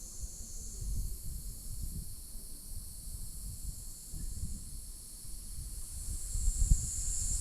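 Steady chorus of insects in the mountains: a continuous high-pitched shrill drone with no breaks. Beneath it runs a low, uneven rumble.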